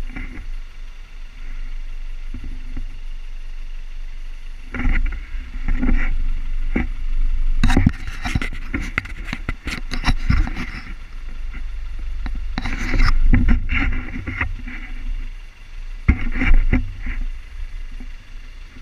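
Engine of an open-topped 4x4 running and rising and falling in revs as it crawls over a rough track, under a steady low rumble. Knocks and rattles from the vehicle come in clusters, loudest through the middle.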